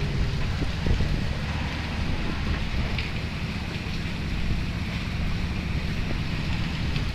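Steady rain falling, a continuous hiss, with a steady low rumble underneath.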